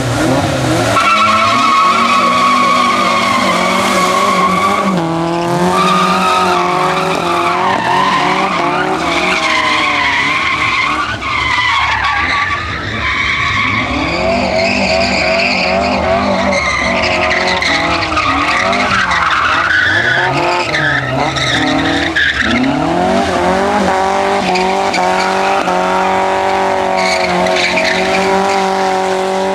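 Car engine revving hard while drifting, the revs climbing and dropping again and again, with tyres squealing as the car slides.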